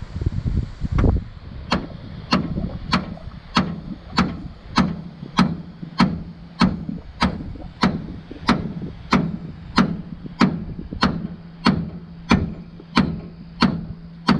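Hammer blows on steel, struck steadily a little under two a second, about twenty in all, each ringing briefly, starting about a second in after some low clattering. The blows are being used to break loose a stuck pitman arm on a steering box shaft.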